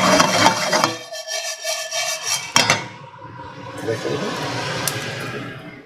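Roasting coffee beans being turned in a dry frying pan: a rattling scrape of beans against the pan for about the first second and again from about halfway until near the end, with a single knock between.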